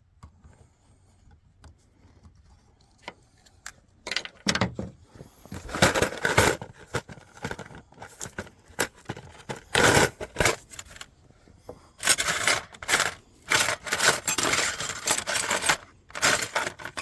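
Metal clinking and scraping in irregular bursts, starting about four seconds in, as a spring hose clamp on a fuel line is worked with hand tools.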